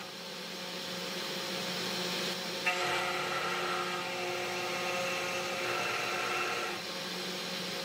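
CNC 3018 Pro Max's spindle running steadily while its milling cutter cuts a groove in an acrylic block, giving a steady motor whine. A higher, layered whine joins about three seconds in and drops away about a second before the end.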